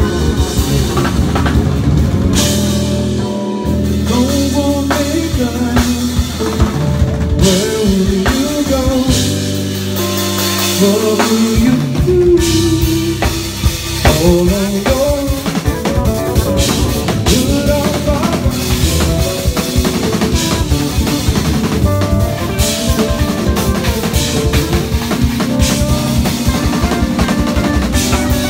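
Live band playing an instrumental passage: a six-string electric bass plays fast melodic runs with sliding, bending notes over a drum kit's kick, snare and cymbals. The bass lines are most prominent in the first half, and the drumming grows busier and denser after the middle.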